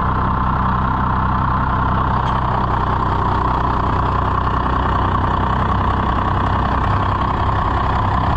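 1994 Dodge Ram 2500's 5.9 Cummins inline-six turbo-diesel idling steadily, its rapid combustion pulses unbroken. The idle is set too low, having vibrated out of adjustment.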